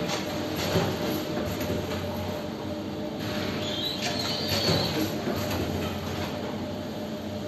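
Automatic face mask making machine running: a steady mechanical hum with light clicking from its conveyors and stations, and a brief high-pitched squeal about four seconds in.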